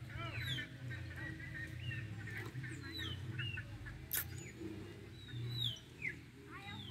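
Small birds singing: many short chirps and quick falling whistles from more than one bird, with a single sharp click about four seconds in.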